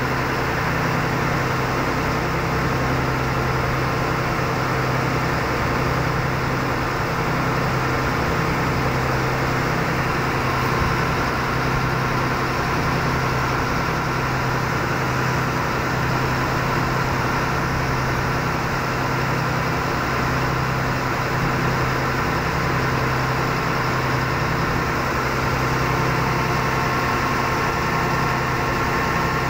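River cruise boat's engine running at a steady speed, a constant low drone heard from on board.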